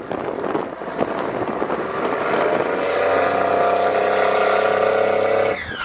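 8.3-litre Cummins turbo diesel of a 5-ton military truck running hard under heavy load while rolling coal. Its steady note builds and grows louder from about two seconds in, then stops suddenly near the end.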